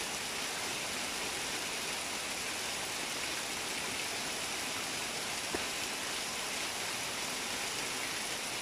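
Steady rain falling on leaves and a tiled roof, an even hiss. A single small tick sounds a little past halfway.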